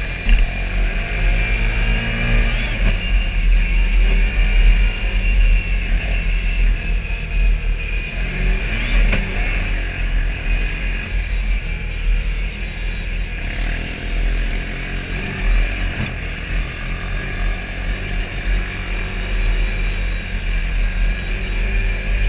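Can-Am Commander side-by-side's V-twin engine running steadily under way, its pitch rising and falling a few times as the throttle is opened and eased.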